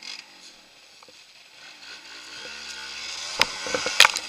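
Off-road motorcycle setting off through dry leaf litter: a rustle and crunch of leaves with the engine that grows louder over the second half, and two sharp knocks near the end.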